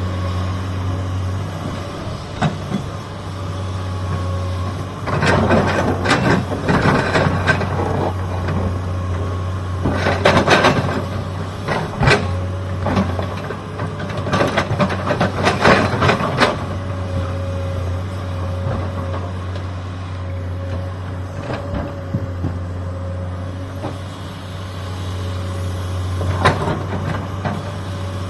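Hydraulic excavator's diesel engine running steadily, with bursts of clattering and scraping from the bucket digging through rock and soil, four times.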